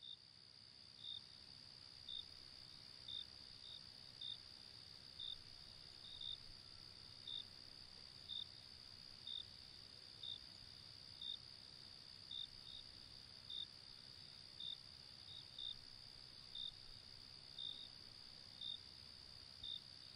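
Faint insect ambience: a steady high-pitched trill with a short chirp repeating about once a second.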